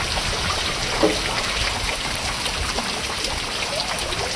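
Steady rush of rain and running floodwater, with a short knock about a second in.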